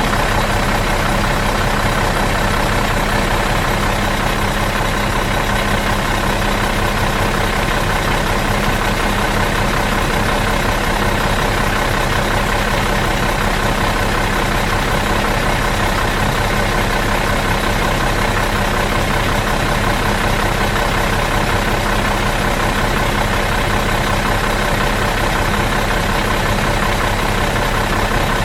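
Bus engine idling out of gear, a steady, even running with no revs or changes.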